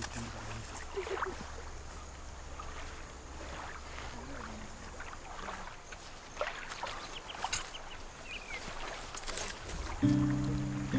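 Quiet outdoor ambience: scattered faint clicks and rustles over a low hum. Soft music comes in near the end.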